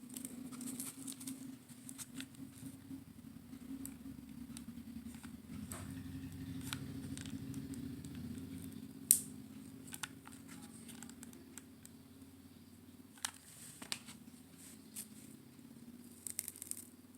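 Scattered light clicks and rustles of small objects being handled, over a steady low hum, with one sharper click about nine seconds in.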